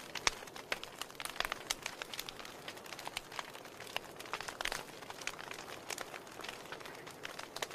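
Wood fire burning in a fireplace: logs crackling with many irregular sharp pops, several a second, over a soft steady hiss.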